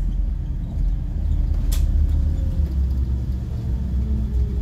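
Scania CN270UB city bus driving, heard from the driver's cab: a steady low rumble of engine and road, with a faint whine that falls slowly in pitch. One sharp click a little under two seconds in.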